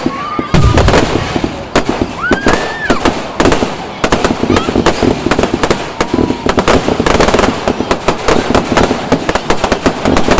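Aerial fireworks going off in rapid succession: dense crackling pops throughout, a heavy boom about half a second in, and a whistling shell rising and falling in pitch around two seconds in.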